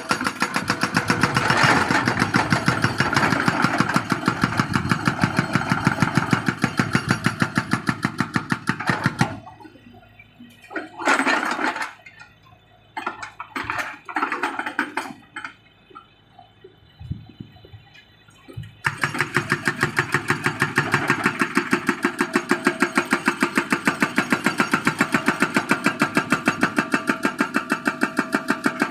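Excavator-mounted hydraulic breaker hammering rapidly, several blows a second, over the machine's engine. About nine seconds in the hammering stops, leaving only short bursts for about ten seconds, then it resumes steadily.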